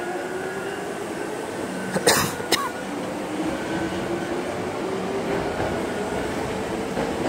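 Hankyu 7000-series electric commuter train pulling out of the station, its motor whine rising slowly in pitch as it accelerates over steady running noise. About two seconds in there is a short double cough close by.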